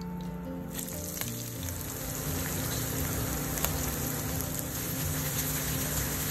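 Sliced shallots hitting hot oil in a frying pan and sizzling: the sizzle starts suddenly a little under a second in and then holds steady.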